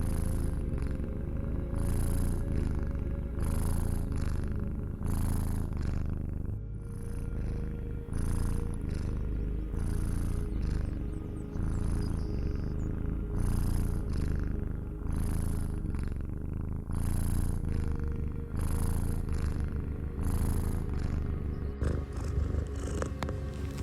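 Domestic cat purring close up: a steady low rumble that swells with each breath, about once every second or so.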